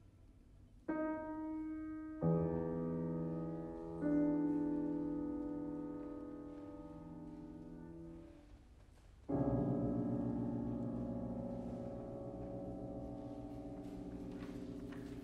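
Grand piano striking four heavy sustained chords, each left to ring and slowly fade, the last after a short pause, about nine seconds in.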